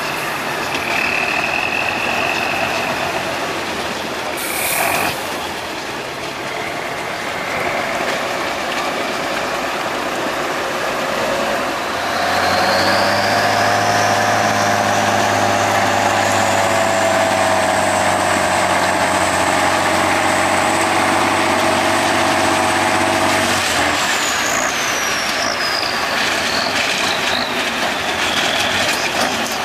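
Tatra 8x8 off-road truck's diesel engine working under load over rocks, with a short hiss of air about four seconds in. About twelve seconds in the engine revs up with a rising whine, holds at high revs for about ten seconds, then drops back.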